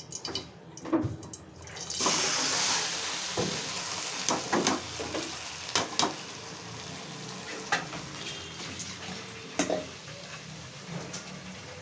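Boiled rice sizzling in hot ghee in a karahi: the hiss sets in suddenly about two seconds in and slowly dies down. A spatula knocks and scrapes against the pan several times.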